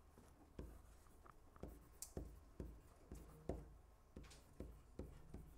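Faint, irregular taps and short scrapes of a stylus handwriting on a touchscreen, one stroke after another.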